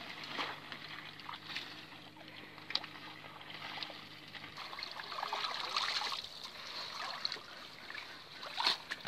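Water sloshing, trickling and splashing irregularly as people wade through shallow water and push through floating water hyacinth to work a bamboo-framed mesh fishing net. A faint steady low hum runs underneath and stops about halfway through.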